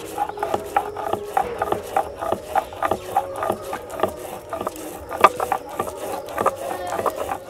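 Stone muller rocked and ground across a flat stone grinding slab (shil-nora), mashing wet mustard seeds and green chillies into paste: regular stone-on-stone knocks and scrapes, about three a second.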